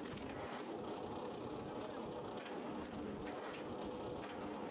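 Rack-driven log splitter running steadily as logs are pushed through its splitting wedge, with a few faint knocks.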